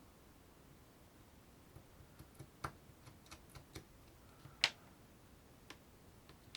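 Scattered light clicks and taps, about a dozen over a few seconds, irregularly spaced. The sharpest is about four and a half seconds in.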